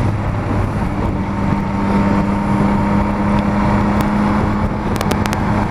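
Yamaha Tracer 9's three-cylinder engine running at a steady cruising speed, with wind rushing over the helmet-mounted microphone. A few short clicks come near the end.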